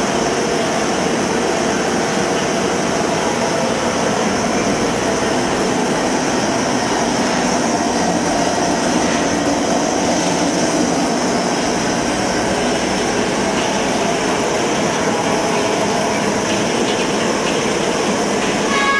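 Gas-fired popcorn machine running while its oil heats: a steady, even roar from the burner under the stainless-steel kettle as the stirrer turns slowly.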